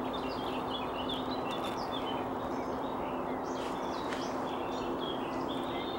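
Small birds chirping and singing, a busy run of short calls and trills, over a steady background hiss and a faint low hum.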